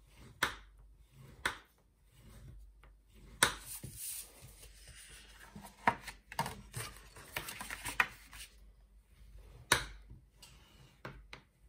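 Bone folder rubbing and scraping along the folds of a piece of cardstock to crease the score lines, with a longer spell of scraping in the middle and several sharp taps as the folder and card are set down on the scoring board.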